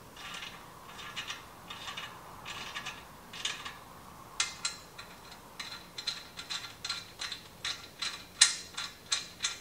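Ratchet clicking in short back-and-forth strokes as it turns a thread chaser through a welded threaded bung, cleaning out the threads. Soft ticks at first, then sharper clicks about two to three a second from about halfway through.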